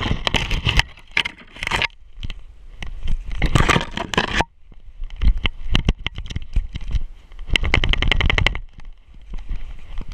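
A dog running through snow and dry brush: about four bursts of rapid crunching, crackling footfalls with twigs scraping past, heard up close from a camera strapped to the dog's back, with low rumbling from the mount.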